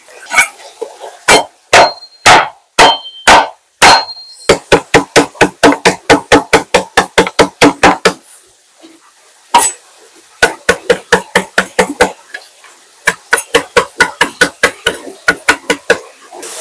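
Knife chopping on a cutting board: a few separate chops, then quick runs of about five chops a second broken by short pauses.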